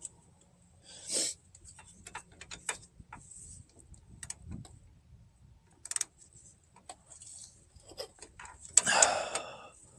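Metal hand tools clicking and rubbing in irregular short strokes as the wheel hub's mounting bolts are tightened, with a longer, louder scrape about nine seconds in.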